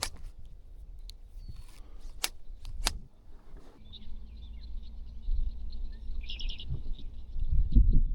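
Small birds chirping, with a quick run of rapid notes about six seconds in. A few sharp clicks come in the first three seconds, and a low rumble builds near the end.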